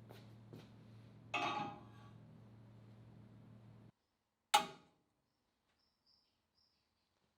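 A steady low electrical hum that cuts off about four seconds in, with a short scraping rustle about a second and a half in. About half a second after the hum stops comes one sharp knock that rings briefly.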